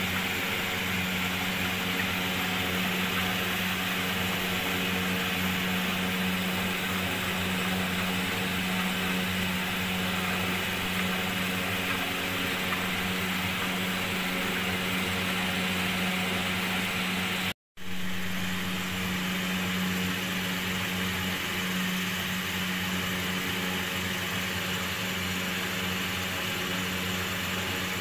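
A steady machine-like hum with a strong low drone, unchanging throughout. It cuts out completely for a moment about two-thirds of the way through.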